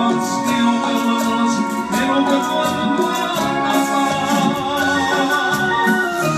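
Ensoniq EPS-16 keyboard played live: organ-like chords and a melody in a Latin tropical style, over a steady ticking rhythm.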